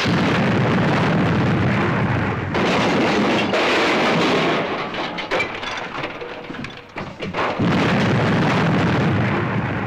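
Explosion sound effect of a police car blowing up: a long, loud rumbling blast that surges again in fresh blasts about two and a half seconds in and again near the end, dying down between them.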